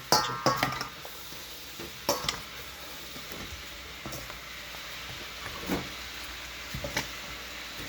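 Raw chicken wings being mixed in a bowl with a wet yogurt and spice marinade: a soft, wet squishing of stirring, with a cluster of knocks against the bowl in the first second and single knocks about two seconds in, near six seconds and near seven.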